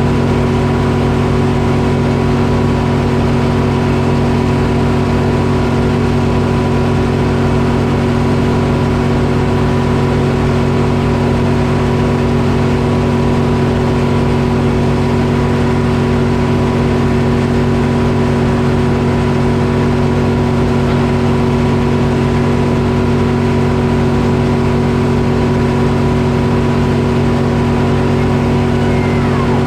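Detroit Diesel engine powering a Frick circular sawmill, running at a steady speed throughout.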